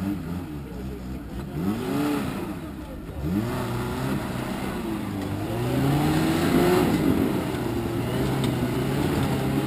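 Off-road 4x4's engine revving under load as it climbs a steep dirt slope: a short rev about two seconds in, then a longer rise in revs held high through most of the rest, starting to drop near the end.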